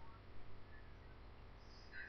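Quiet room tone: a steady low hum with two faint soft knocks about half a second in.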